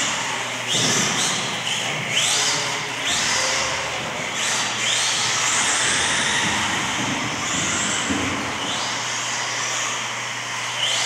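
Radio-controlled off-road buggies running laps on a dirt track: high motor whines rise again and again as the cars accelerate, over a steady hiss.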